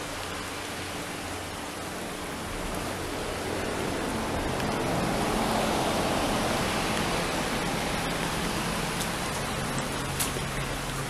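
Steady rushing noise that swells a few seconds in, with a few light clicks near the end.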